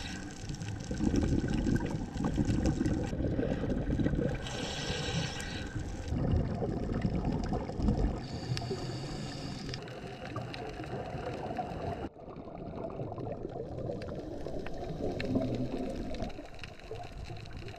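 Underwater sound from a diver's camera: a low rushing rumble with surges of bubbling from scuba divers' exhalations, and faint scattered clicks. The sound changes abruptly about twelve seconds in.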